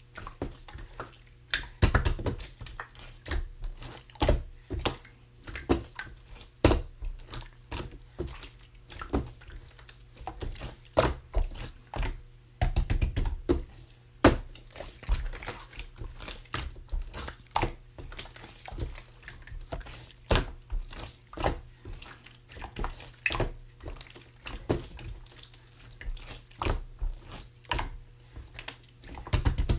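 Clear slime being squeezed and poked by hand, giving a steady run of short wet clicks and pops at an irregular pace.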